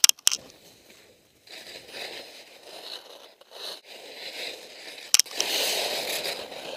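Skis scraping and hissing across snow in a series of turns, in several bursts, the longest and loudest near the end. Sharp knocks right at the start and again about five seconds in.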